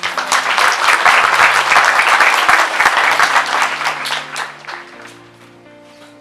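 Audience applauding, starting at once, then dying away after about five seconds, with background music playing steadily underneath.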